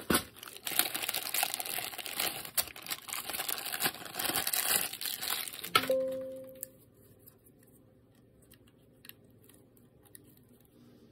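Crinkling, crackling handling noise for about six seconds, ending in a sharp click followed by a brief fading low tone; then it goes nearly quiet.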